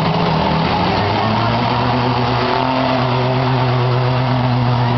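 Engines of several demolition derby trucks running and revving together, their pitches rising and falling against one another.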